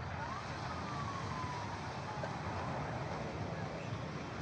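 Steady beach ambience: the wash of small waves and wind on the microphone. In the first two seconds a few faint, thin whistling tones glide up and then slowly down.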